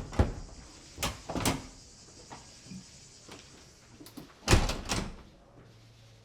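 A series of sharp knocks and bangs, like a door or cupboard being worked, in three clusters: two at the start, two about a second in, and three at about four and a half seconds. A steady high insect hiss, typical of cicadas, runs behind and fades near the end.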